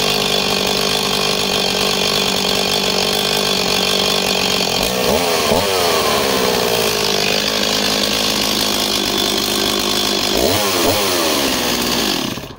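Stihl MS260 two-stroke chainsaw idling, blipped briefly to higher revs and back down twice, then switched off just before the end. The tick-over is thinner and a little less even than expected, which the owner thinks may mean the carb needs a service or there is a tiny air leak.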